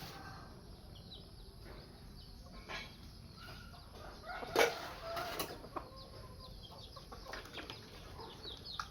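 Birds chirping and clucking in many short, high calls, with two sharp knocks near the middle.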